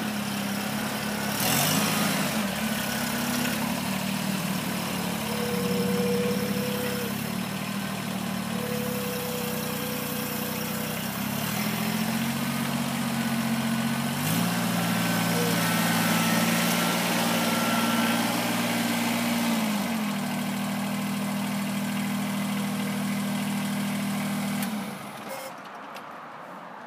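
Kubota BX2380 sub-compact tractor's three-cylinder diesel engine running as the tractor is driven slowly, its pitch stepping up about fourteen seconds in and dropping back about six seconds later. The engine sound cuts off near the end.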